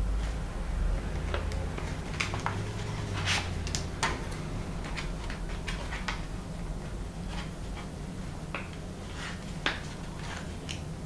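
Folded paper origami units rustling and crackling in the fingers as they are pinched and pushed into one another: scattered short crackles over a steady low hum.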